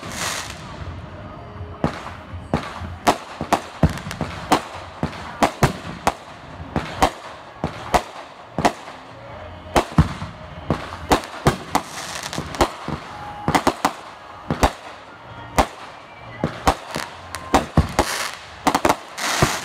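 Aerial fireworks bursting in quick succession: dozens of sharp bangs, often two or three a second, over a crackling background, with a longer crackling rush near the end.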